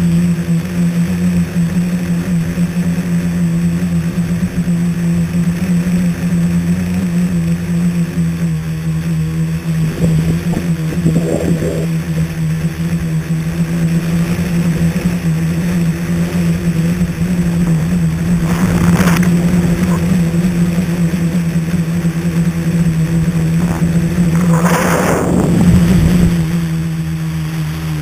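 A scratch-built tricopter's motors and propellers humming steadily in flight, heard from the camera mounted on the craft. There are two brief louder rushes, about two-thirds of the way in and again near the end.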